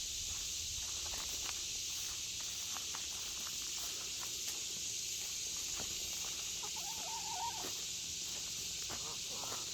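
Chickens at the coop: a hen gives a brief wavering call about seven seconds in, with a few light clicks over a steady high hiss.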